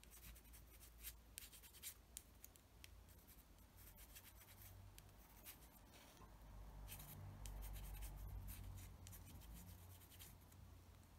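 Faint scratchy strokes of a graphite pencil rubbed along the edges of a small plastic model propeller blade. A low rumble swells in the middle seconds.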